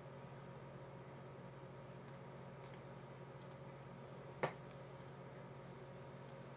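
Computer mouse clicks, a few faint ones spaced out, with one sharper, louder click a little past halfway. A steady low hum runs underneath.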